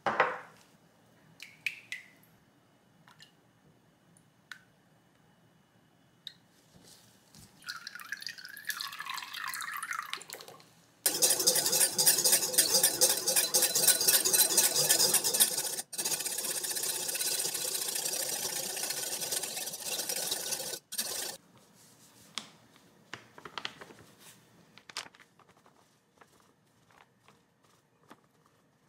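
A wire whisk beats milky liquid in a glass bowl, a fast, loud rattling scrape of wire on glass for about ten seconds with a brief stop midway, whipping it until it froths. Shortly before, liquid is poured into the bowl. A few light taps and rustles follow.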